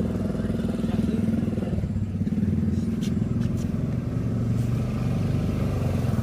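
Engine of a restored livestock feed-processing machine running steadily with a rapid low pulsing, and a few light clicks about three seconds in.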